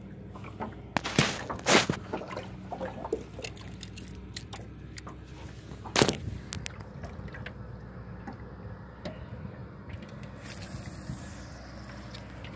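Sharp knocks and rustling from a phone being handled and bumped in a small boat, loudest about a second in, again just after, and about six seconds in, over a steady low hum.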